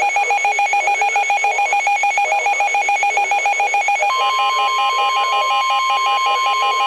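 Emergency Alert System alert tones, several overlapping: a rapidly pulsing, trilling tone at about eight beats a second, joined about four seconds in by a steady single-pitch weather-radio warning tone.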